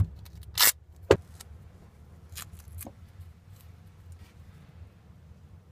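Duct tape being pulled off the roll and torn: a few short, sharp rips and handling clicks in the first three seconds, the loudest around half a second to a second in, then only faint fiddling over a low steady hum.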